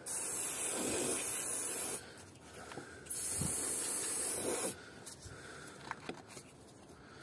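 Aerosol can of silicone oil spraying in two hissing bursts, one of about two seconds and then one of about a second and a half, followed by faint rubbing and a few light clicks.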